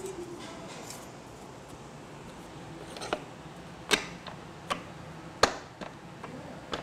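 A deck of stiff paper punched cards being handled: cards taken out of the card sorter's pockets and stacked back up, with a few sharp taps a second or so apart as the deck is knocked square against the machine, over a faint steady hum.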